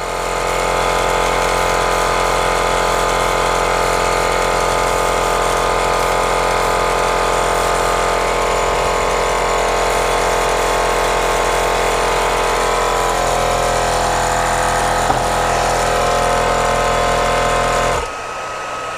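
Small airbrush compressor running steadily, with the airbrush spraying paint; its tone shifts about thirteen seconds in. Near the end it cuts off suddenly, leaving the quieter steady blow of a hair dryer drying the paint.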